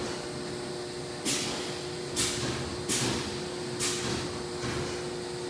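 A steady machine hum with two even tones, with five short, sharp taps about a second apart as the touchscreen of the press brake's CNC control is pressed to change pages.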